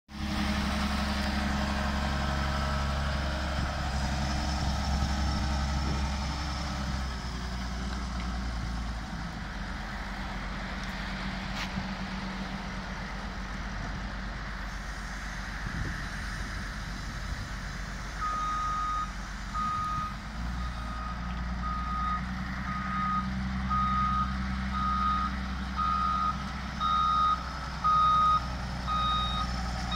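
Caterpillar 924G wheel loader's diesel engine running as the machine works and moves. About two-thirds of the way in its reversing alarm starts beeping, one steady tone about once a second, the beeps growing louder near the end as the loader backs up.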